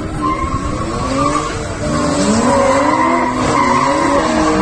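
BMW 3 Series drift car sliding: the engine revs up and down over and over while the tyres squeal. It gets louder about two seconds in.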